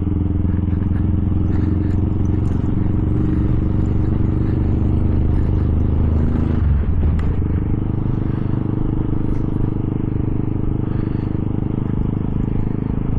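Small Honda motorcycle's engine running steadily under way on the road. About halfway through the engine note dips briefly and then settles at a new steady pitch.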